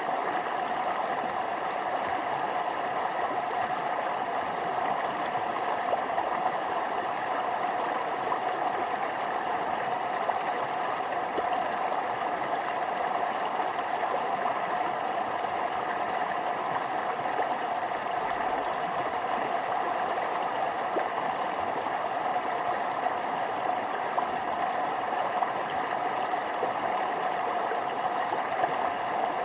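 Forest stream running over small falls: a steady, even rush of water.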